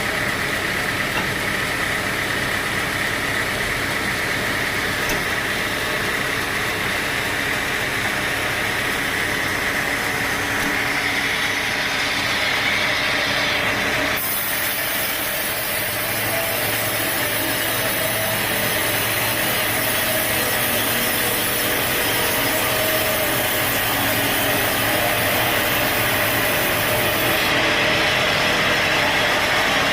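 Sawmill machinery running steadily with a saw cutting wood; the sound shifts abruptly about halfway through.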